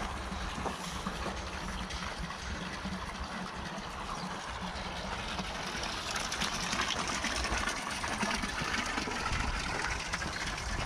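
Wind buffeting the microphone as a low rumble, with footsteps crunching on gravel that grow more prominent about halfway through.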